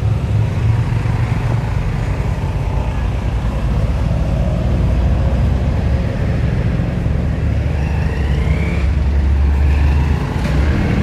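Cambodian tuk-tuk, a motorcycle pulling a passenger carriage, with its engine running and a steady low rumble heard from the carriage.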